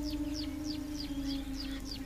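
A bird calling a rapid series of short high notes, each sweeping downward, about three a second, over a steady low held note of background music.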